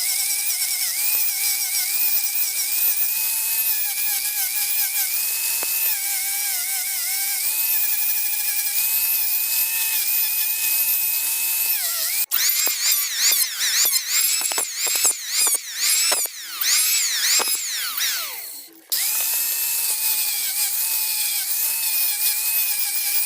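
Small high-speed electric rotary tool working wood, running with a steady high whine that dips slightly under load. About halfway through, it repeatedly winds up and down in pitch for several seconds and briefly cuts out, then runs steadily again.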